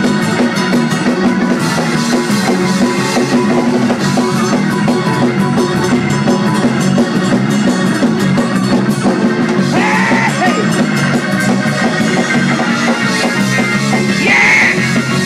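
Live church band playing a fast praise-break groove, the drum kit driving a steady beat under the rest of the band. A voice cries out over the music twice in the second half.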